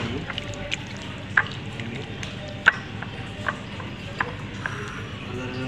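A hand squeezing and mixing boneless chicken pieces in a thick chilli-spice marinade in a bowl: irregular wet squelches and clicks, the sharpest about two and a half seconds in.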